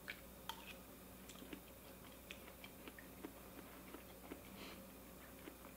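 Faint, quiet chewing of a spoonful of soft baby lamb liver: scattered small wet mouth clicks over a faint steady hum.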